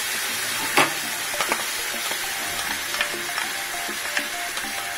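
Cream sizzling and bubbling as it hits a hot nonstick frying pan, a steady hiss, while a silicone spatula scrapes through it. A few sharp taps of utensil on pan cut through, the loudest about a second in.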